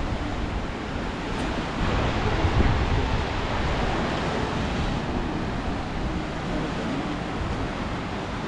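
Ocean surf and wind, a steady rushing noise that swells briefly about two to three seconds in.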